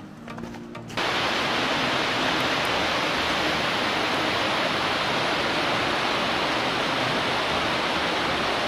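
Background music cuts off about a second in. A steady, loud rush of water follows, water gushing out of a concrete outlet and splashing down.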